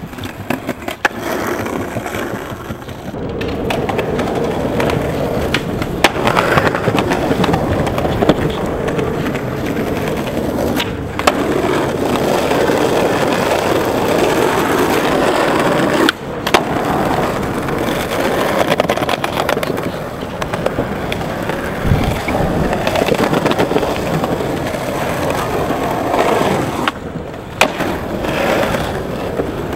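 Skateboard wheels rolling loudly over concrete and asphalt, with sharp clacks of the board popping and landing tricks scattered through. The rolling cuts off and starts again several times.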